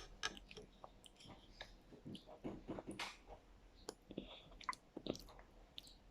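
A person eating yogurt at close range: soft, irregular wet mouth smacks and small clicks.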